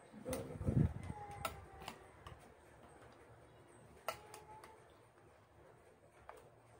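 Metal spoon and fork clinking against a ceramic bowl while tossing kinilaw: several sharp clinks, two of them ringing briefly. A dull thump comes near the start and is the loudest sound.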